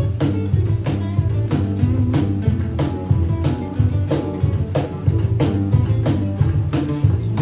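A band playing an instrumental passage of a song: guitar and bass over a drum kit keeping a steady beat.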